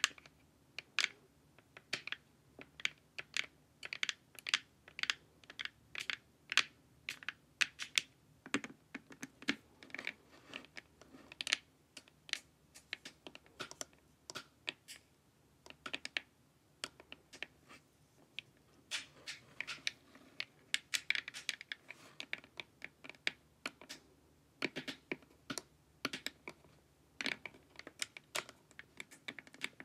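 Long fingernails tapping on a hard, glossy plastic face mask: quick, irregular clicks, several a second, in clusters with short pauses.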